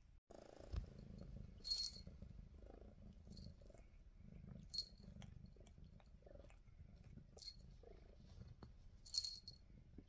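Domestic cat purring faintly as she chews on a feather wand toy, with a few short, light jingles.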